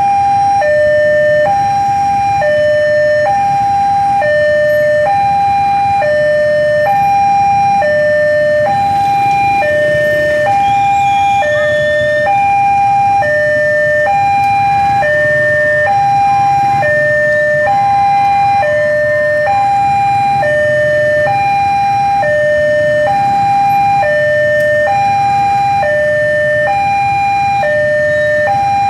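Railway level-crossing warning alarm sounding a steady, loud two-tone hi-lo signal, switching between a higher and a lower tone about twice a second. With the barrier down and the signal showing red, this is the warning that the crossing is closed for an approaching train.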